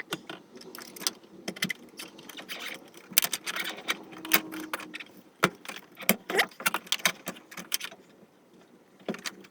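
Irregular clicks, knocks and rattles of a fuel pump assembly being worked back down into the car's fuel tank through its access hole.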